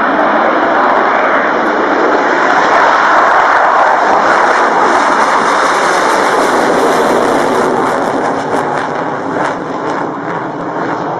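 Mirage 2000 fighter's jet engine at takeoff power, a loud roar. It swells over the first few seconds as the jet lifts off and climbs, then fades from about eight seconds in as the jet pulls away.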